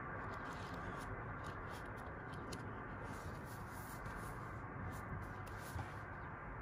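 Paper rustling and short flicks as the pages of a paperback manga are turned and the book is handled and turned over, over a steady background hiss.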